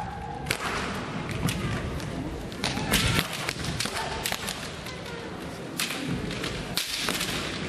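Kendo bout: sharp knocks of bamboo shinai clashing and striking armour, mixed with thuds of stamping feet on a wooden floor, coming in bunches, a close run of them about three seconds in and more near the end.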